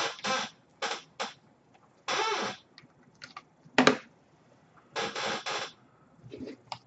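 Handling noise from plastic speakers and their cables being moved and hooked up: about half a dozen short scrapes and squeaky rubs, with a few sharp clicks between them.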